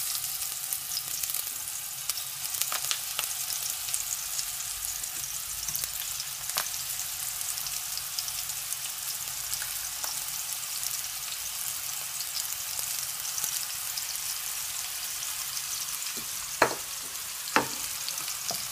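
Chicken kofta patties sizzling and crackling as they shallow-fry in a little hot oil in a wok, with a few small ticks and two sharper clicks near the end.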